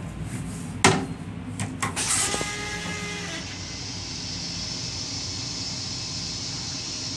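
Metro-North M7 railcar toilet flushing into its stainless-steel bowl. A sharp clack comes about a second in, then a rush of water and air with a faint whine that lasts about a second and a half and cuts off suddenly, leaving a steady hiss.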